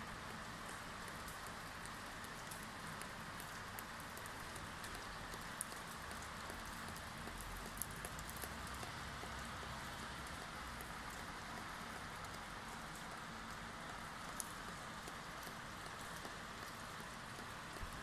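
Steady hiss of wet snow falling outside, with scattered light ticks of drops hitting surfaces.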